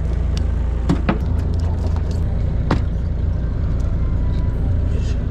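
A boat's engine runs steadily as a low rumble, with a few short sharp knocks, two about a second in and one louder one near the middle.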